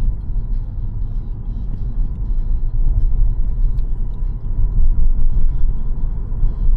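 Car driving steadily along a road, heard from inside the cabin: a continuous low rumble of engine and tyre noise.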